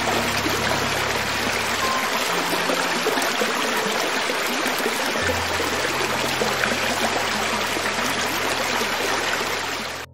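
Creek water flowing steadily over rocks, an even rushing and trickling, with low sustained music tones underneath. The sound cuts off abruptly near the end.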